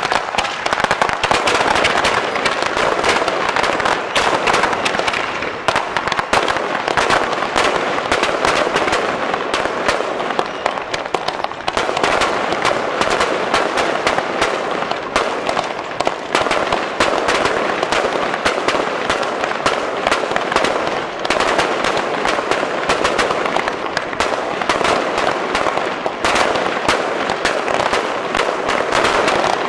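Fireworks display: a dense, unbroken string of bangs and crackles as aerial shells and stars burst one after another.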